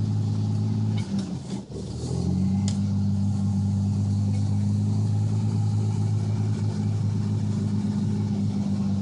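Chevy S10's 2.8-litre V6 running at a raised, steady idle in neutral. The sound dips and wavers briefly about a second in, then settles back to a steady drone. The engine has revved up on its own with no throttle, an unexplained high idle.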